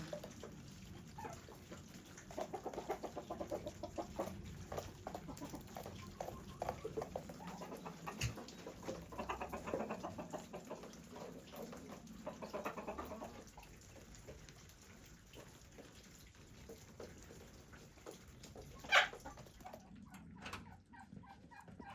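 Chickens clucking in runs of short, rapid calls, dying down about halfway through, with one brief louder sound near the end.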